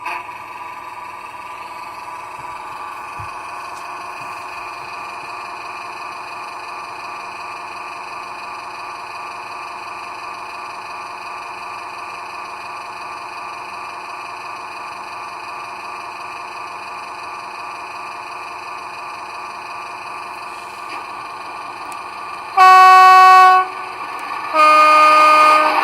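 Model Class 68 diesel locomotive's DCC sound decoder playing through a small Foster 20x40 mm speaker in a 3D-printed bass reflex enclosure: the diesel engine sound running steadily, then two horn blasts of about a second each near the end, the second lower in pitch.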